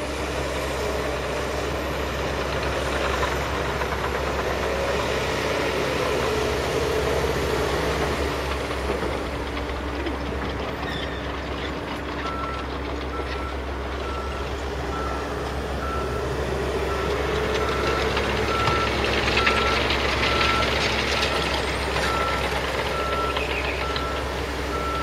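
Diesel engines of heavy earthmoving plant, an articulated dump truck and an excavator, running and revving up and down. About halfway through a reversing alarm starts beeping steadily about once a second: the machine is backing up.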